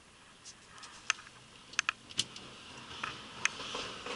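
Handling noise: a run of irregular sharp clicks and taps with some rustling as the camera is picked up and moved about, close to the microphone.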